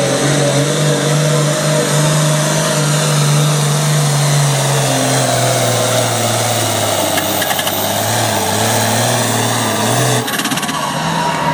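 Diesel Pro Stock Farmall tractor engine running flat out under load as it pulls a weight-transfer sled. Its note drops slowly over the first several seconds as the load builds, then breaks off about ten seconds in as the pull ends.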